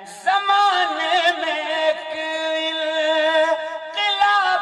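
A singer draws out a wavering, ornamented phrase of a manqabat, a Sufi devotional song, over a steady held lower note. The singing starts about a quarter second in, after a short pause.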